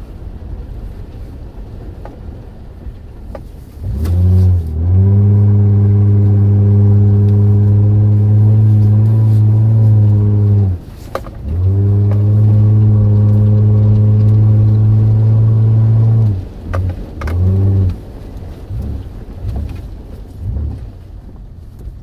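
Toyota Land Cruiser engine revved up and held at a steady high speed for about six seconds, dropping briefly, then held again for about five seconds, followed by a few short revs.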